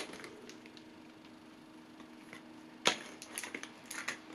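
Quiet handling of trading cards and a foil booster pack: a single sharp click about three seconds in, then light crinkling of the foil wrapper as the pack is picked up to be opened.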